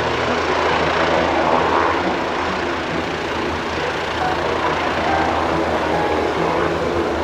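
Aircraft engines running steadily, a continuous drone with low humming tones underneath.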